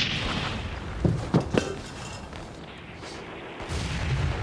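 A few short dull thuds about a second in, then a low rumble starting near the end.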